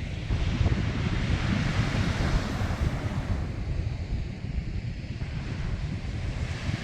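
Sea waves washing, one wash swelling about two seconds in and then receding, with wind rumbling on the microphone.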